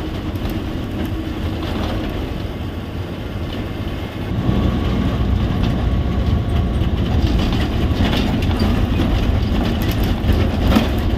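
APSRTC express bus driving, heard from inside the cabin: steady engine and road rumble with rattles from the bus body, a little louder from about four seconds in.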